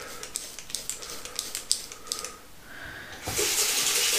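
Several short scraping strokes of a razor through lathered stubble, then a tap turned on about three seconds in, water running steadily into the sink.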